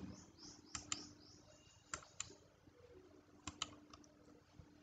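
Quiet clicking at a computer: three pairs of short soft clicks, each pair a fraction of a second apart, over a faint steady low hum.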